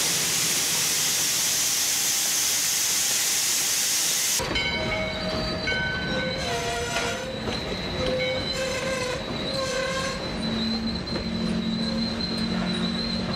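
Steam locomotive and freight cars backing slowly through the curve of a wye. A loud steady hiss for about four seconds cuts off abruptly and gives way to wheel flanges squealing on the curved rail, several high tones that shift in pitch, with a low steady hum coming in near the end.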